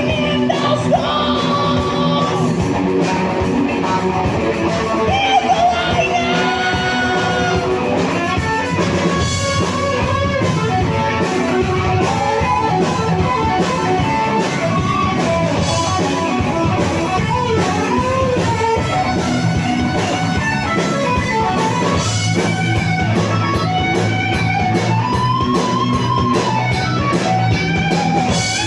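Rock band playing live, with electric guitars to the fore over bass and a steady beat.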